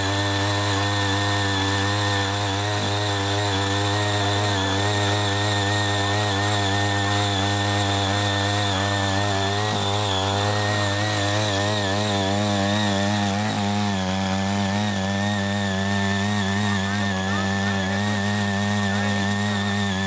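CHING YEE CY80 mini power tiller's small petrol engine running steadily under load as its rotary tines dig through weedy soil. The engine note wavers slightly as the load changes.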